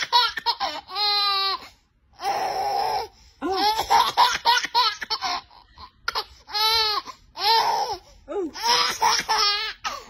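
Baby laughing hard in repeated bouts: quick strings of short ha-ha sounds alternating with longer squealing laughs whose pitch rises and falls, with brief pauses for breath between bouts.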